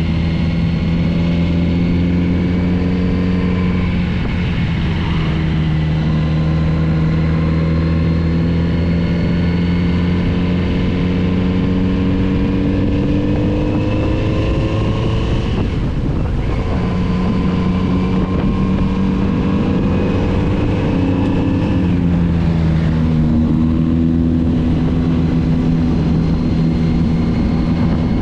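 Kawasaki Z900RS's inline-four engine running under way, its pitch climbing slowly with the throttle and dropping at shifts or throttle changes about 4, 16 and 22 seconds in, over road and wind noise.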